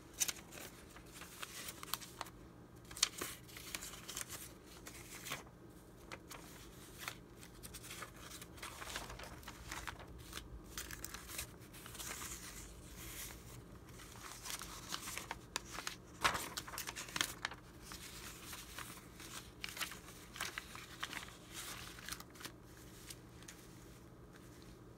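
Old paper documents being handled: sheets rustling and crinkling as they are picked up, fanned through and laid back down, with paper rubbing on paper.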